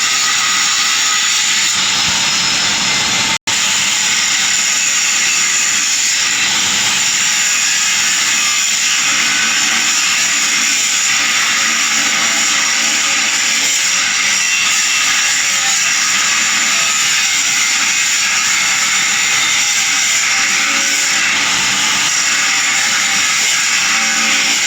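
Steady, loud metalworking noise with a hissing, whining edge, cut off for an instant about three and a half seconds in.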